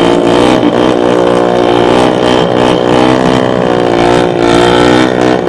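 Small dirt bike engine running at steady revs while riding, with wind rush over the microphone.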